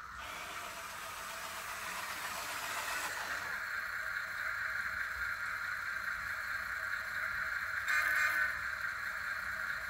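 1:14 scale RC Mercedes-Benz Zetros truck running, a steady whine that grows stronger a few seconds in, with a brief louder rush about eight seconds in.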